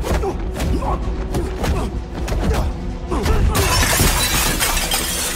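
Film fight sound effects: a few sharp impact hits, then about three and a half seconds in, a glass display case shattering in a long spray of breaking glass. A dramatic music score runs underneath.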